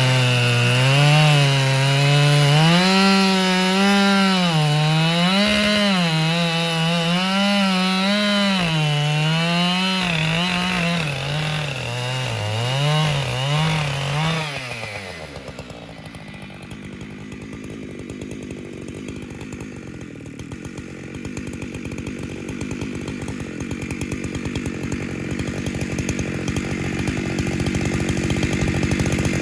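Husqvarna 592XP two-stroke chainsaw on an Alaskan chainsaw mill, running at full throttle and ripping a log lengthwise, its pitch rising and falling as the chain loads up in the cut. About halfway through it drops off sharply to a quieter, steadier sound.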